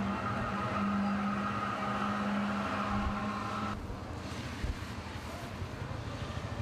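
Street background noise with a vehicle engine running at a steady pitch; about four seconds in the engine hum stops and a quieter, even traffic noise remains.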